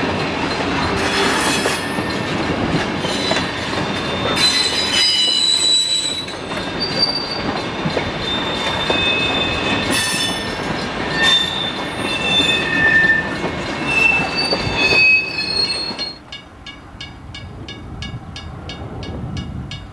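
Burlington Northern diesel freight train rolling past close by, with a steady rumble of wheels and cars and high-pitched wheel flange squeals coming and going on the curve. About sixteen seconds in the sound cuts to a quieter, more distant train scene with a rapid, even ticking.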